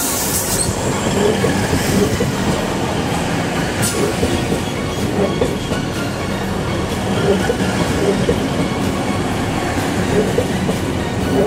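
Regional electric multiple unit passing close by at low speed, a steady rumble of wheels on rail with clacks as the bogies run over rail joints and points, the clearest about four seconds in.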